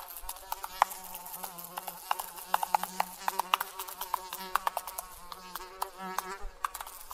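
A flying insect buzzing, coming and going, among many short sharp clicks and chirps.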